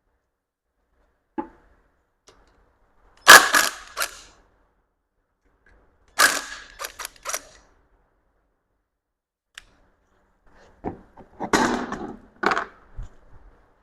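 Metal engine parts and tools clanking and clicking in several separate bursts, the loudest a little over three seconds in. This is the windage tray and its bolts being worked off the underside of a Mazda B-series engine.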